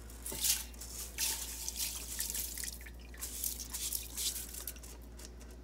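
Water dripping and splashing in a stainless steel pot as wet, rinsed rice is tipped from a mesh strainer into the water: irregular small drips and patters.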